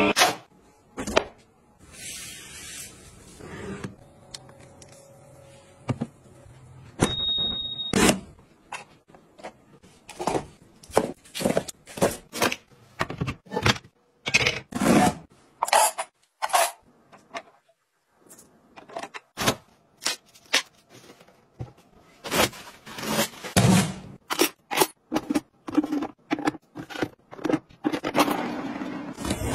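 A long run of separate knocks, clicks and scrapes from household items being handled and set in place: plastic and metal kitchenware being knocked, slid and dropped into holders, such as knives going into a plastic knife block. A short, high, steady beep sounds about seven seconds in.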